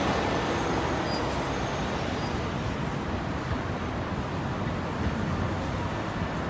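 Tram running along street tracks and moving away, a steady rumble that slowly eases, mixed with passing road traffic.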